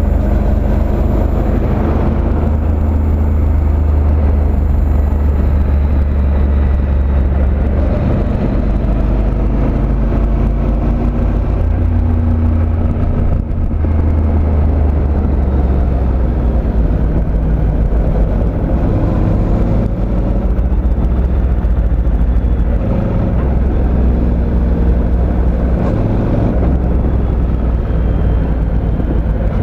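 Motorcycle engine running as it rides through the bends, its pitch shifting up and down, under a heavy rumble of wind on the microphone.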